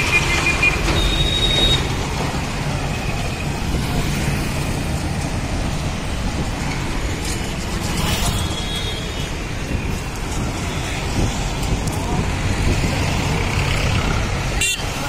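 Busy road traffic: the engines of buses, cars and motorbikes running past in a steady rumble, with a few short high tones from horns or brakes about a second in and again about eight seconds in.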